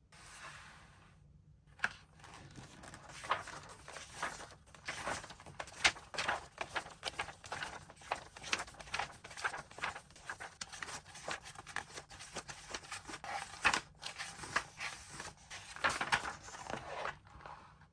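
Toy packaging being handled and opened: irregular crinkling and tearing with many small clicks, pausing briefly about a second in and stopping near the end.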